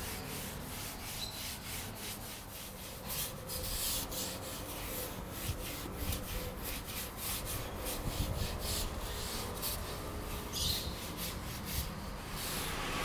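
Bristles of a detailing brush scrubbing a leather car seat in a quick rhythm of short back-and-forth strokes.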